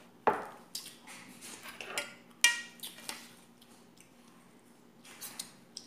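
Tableware knocking and clinking during a meal eaten by hand from a stainless steel bowl: about seven short sharp sounds, the loudest just after the start and about two and a half seconds in, the second with a brief ringing like a glass set down. A faint steady low hum runs underneath.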